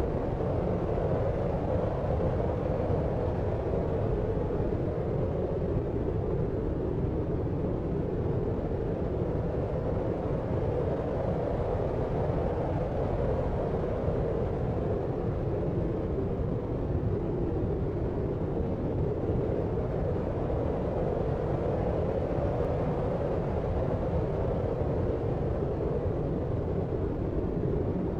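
Steady deep noise: a low, even rumbling hiss with most of its weight in the bass and lower mids and little treble, unchanging and with no separate events.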